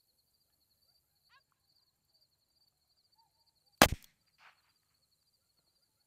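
A single pop from a 209 primer pistol firing a shotgun primer, about four seconds in, under a faint steady insect chirring.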